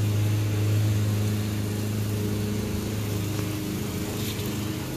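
An engine running steadily at an even speed, a low constant hum.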